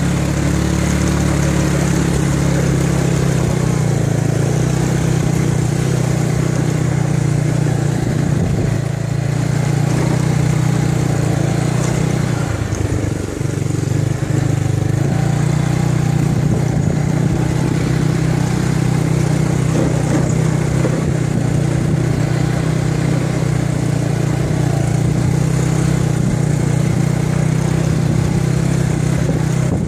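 Motorcycle engine running steadily while riding at low speed, heard from on the bike. Its drone dips briefly about halfway through.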